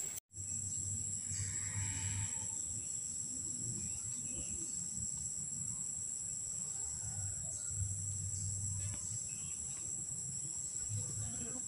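Steady, high-pitched chorus of forest insects, with a faint low rumble underneath.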